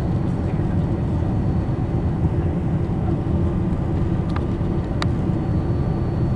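Steady low roar of a Boeing 747-400's engines and airflow heard inside the passenger cabin during the climb after takeoff. A couple of faint clicks sound about four and five seconds in.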